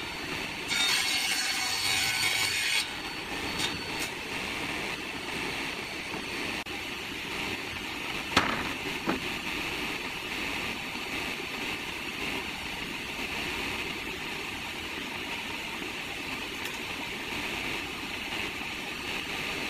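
Sliding table saw running steadily while a wooden board is fed through the blade. The cutting noise is louder for about two seconds near the start, and there is a sharp knock about eight seconds in.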